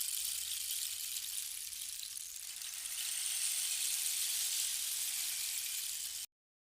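Steady high-pitched hiss that cuts off suddenly about six seconds in.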